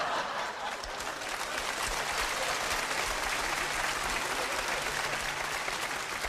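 Studio audience applauding steadily after a joke, with some laughter mixed in.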